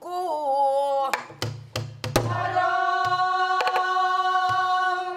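A woman singing pansori, a short moving phrase and then one long held note from about two seconds in, over her own buk barrel-drum accompaniment: sharp clacks of the stick on the drum's wooden body and a few low thuds on the drumhead.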